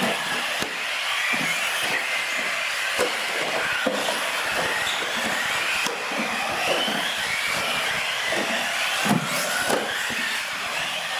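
Several radio-controlled UTVs racing on a concrete floor, their motors whining and rising and falling in pitch with the throttle, over tyre noise, with scattered knocks, the loudest about nine seconds in.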